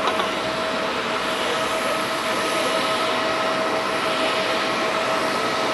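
Pratt & Whitney PW4000 turbofan on a Boeing 777-200ER running at idle: a steady whine on two held pitches over a broad rushing noise.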